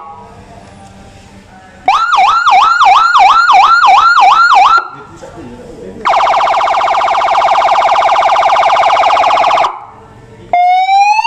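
12 V 200 W eight-tone electronic siren horn stepping through its tones. First comes a fast yelp of about three rising sweeps a second for about three seconds. After a short pause there is a steady horn tone for about three and a half seconds, and near the end a slow rising wail begins.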